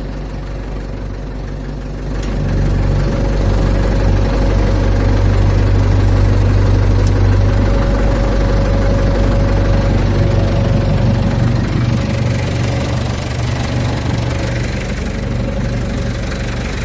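Ford 755 backhoe's engine running. It picks up and gets louder about two seconds in, then holds a steady working speed with a thin steady tone over the rumble.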